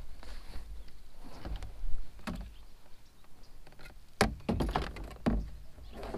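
Kayak paddle and gear being handled in a plastic sit-on-top kayak, knocking against the hull: several separate thumps, the loudest about two seconds in and twice near the end.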